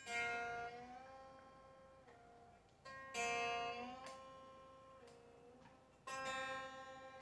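Telecaster strings plucked three times, about three seconds apart, each note ringing and fading, with the B-bender pushing the B string's pitch up a little and letting it back down. This is a tuning check of the bend, which he judges still a little flat.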